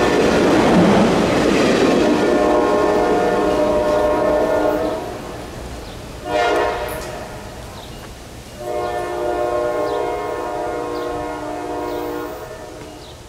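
Diesel locomotive air horn sounding a chord: a blast that ends about five seconds in, a short blast, then a long blast, the closing long-short-long of a grade-crossing signal. The rumble of the train is loudest at the start and fades away.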